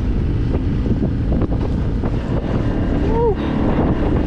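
Small open fishing boat underway: its motor running steadily under dense wind buffeting on the microphone and water rushing past the hull. A brief chirp-like call is heard about three seconds in.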